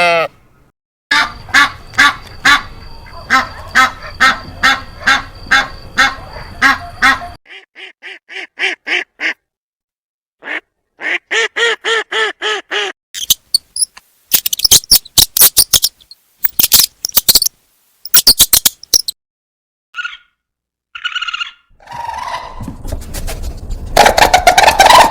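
A run of different animal calls in short segments. First comes a long series of evenly repeated pitched calls, then shorter call series. After that come rapid sharp chattering bursts, and near the end a loud harsh rasping sound.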